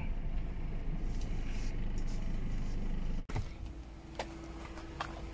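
Car engine idling, heard from inside the cabin, with a steady low hum. A little over three seconds in the hum breaks off suddenly, and what follows is quieter, with a few light clicks.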